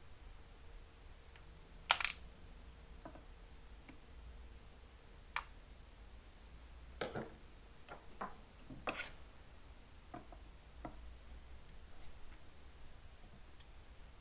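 Scattered clicks, taps and light knocks of metal hand tools working on a Suzuki GS550 carburetor rack, with the sharpest knock about two seconds in and a cluster of taps a few seconds later.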